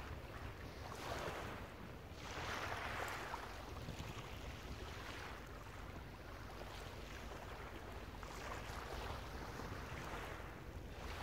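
Small waves washing onto a shingle beach, coming in repeated swells every second or two, over a low steady wind rumble on the microphone.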